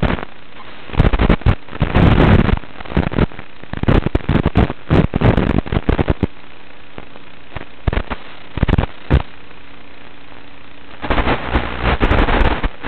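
Crackling static bursts from an analog FPV video receiver's audio channel, coming and going irregularly as the video signal breaks up, over a steady low hiss.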